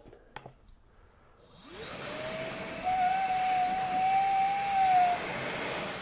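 Milwaukee M18 FUEL dual-battery wet/dry shop vacuum switching on about a second and a half in on its low setting. Its motor spins up with a rising whine that settles into a steady pitch, over a hissing rush of air as the nozzle sucks up fine sand. The whine fades out shortly before the end.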